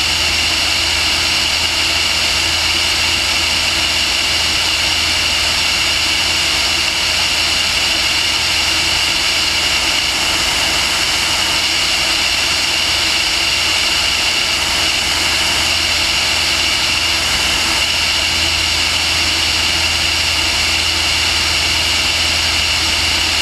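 Steady motor and propeller noise of the aircraft carrying the camera, heard close up, with a high-pitched whine above a low hum and no change in pitch or level.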